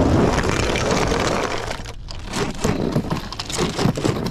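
Plastic toy monster trucks and plastic track rattling and clattering: a rolling rumble at first, then, after a brief break about two seconds in, a run of quick clicks and knocks.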